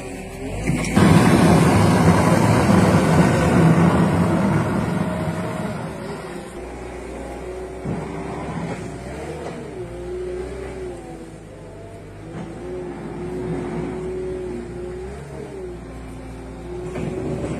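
Motor vehicle engine noise: a loud run starting about a second in, then quieter, with a tone that rises and falls in pitch as the engine revs.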